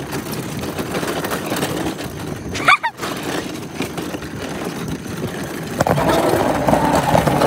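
Wind buffeting and rumble on a phone's microphone held low on a moving child's bicycle, with tyre noise from the pavement. A short high-pitched squeal cuts in about two and a half seconds in.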